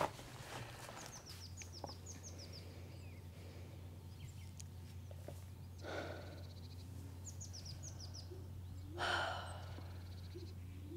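A small songbird singing short phrases of quick descending high notes, repeated every couple of seconds, over a low steady hum. There are two soft breathy sighs, about six and nine seconds in.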